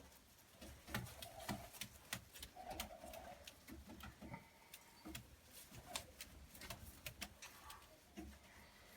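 Frillback pigeon cooing softly, a couple of short low coos about one and a half and three seconds in, amid scattered light clicks and taps.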